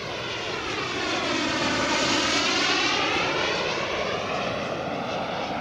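Model jet turbine (a single B300F) of a 1/5-scale English Electric Lightning passing by in flight. It grows louder to a peak around the middle, then fades as the jet goes away.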